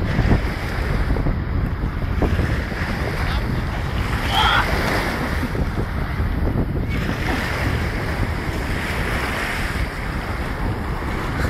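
Steady wind buffeting the microphone over sea water sloshing and lapping in the shallows, with some splashing as a bicycle is pulled up out of the water.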